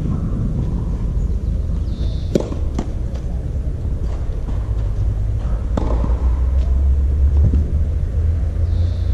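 Tennis ball struck by rackets and bouncing on the clay court: a few sharp pops, two in quick succession about two and a half seconds in and another near six seconds, over a steady low rumble.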